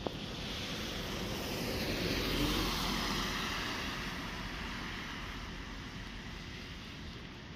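A vehicle passing by: a rush of noise that builds over the first couple of seconds, peaks about two to three seconds in, then slowly fades away.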